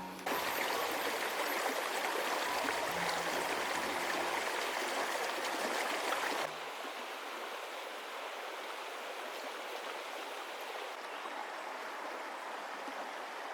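A stream of water flowing and splashing over rocks, loud for about the first six seconds, then abruptly quieter and steady.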